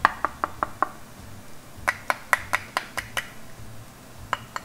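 Glass saucepan lid with a stainless steel rim, tapped with the fingers as a sound test of how solid it is. The taps come fast, about six or seven a second, in two runs with a short pause between and a couple more near the end.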